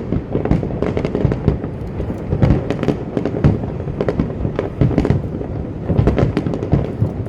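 Aerial fireworks going off in a dense, continuous barrage: many bangs and crackles in quick succession over a steady low rumble.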